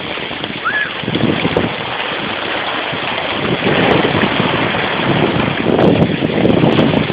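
Heavy rain pouring with flooding water rushing and splashing, in uneven louder surges around the middle and near the end, with wind buffeting the microphone.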